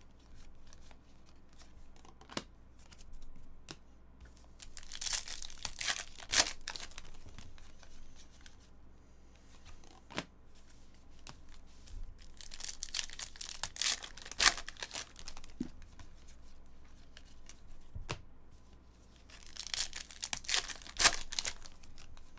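Foil trading-card pack wrappers crinkling and tearing open, in three bouts about seven seconds apart, with small clicks of cards being handled in between.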